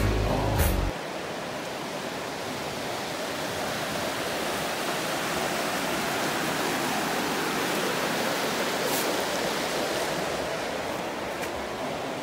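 Fast spring-fed stream rushing over rapids: a steady, even rush of white water.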